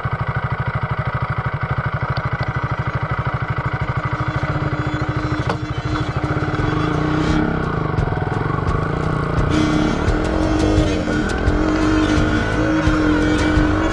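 KTM single-cylinder motorcycle engine idling with an even, rapid low thump. About six seconds in, music comes in over it as the bike pulls away and rides off.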